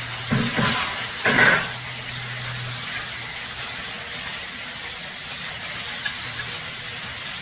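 Food sizzling in a pan, a steady hiss under a low on-and-off hum, with two short louder bursts of noise about half a second and a second and a half in.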